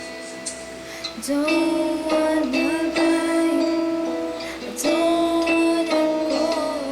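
A woman singing a pop song over accompaniment with plucked strings. The voice comes in about a second in.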